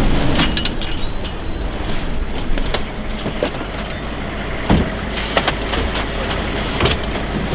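Humvee running as it rolls over sand and pulls up, with a thin high brake squeal lasting about a second and a half starting about a second in. A few sharp metal clanks from doors and gear follow in the second half.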